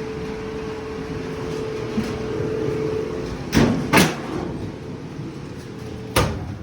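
Clothes dryer running with its drum turning on a newly fitted drive belt: a steady mechanical rumble with a faint hum, two knocks about three and a half seconds in, and a sharp knock about six seconds in as the running noise stops.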